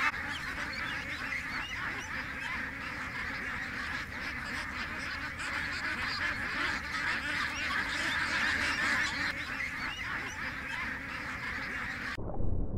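A large flock of domestic ducks quacking and chattering, many birds calling over one another without a break. The calls cut off suddenly near the end, leaving a low rumble.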